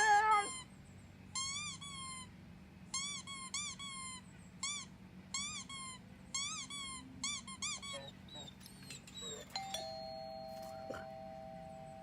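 Sound-effect playback: a run of short, squeaky chirps, each rising and falling, in quick groups of two to four. Near the end comes a two-note doorbell chime, ding then dong, that rings on and slowly fades.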